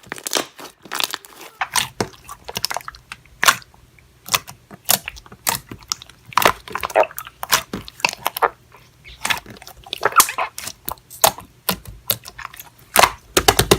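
Slime being squished, stretched and poked by hand, making a quick irregular run of wet pops and clicks.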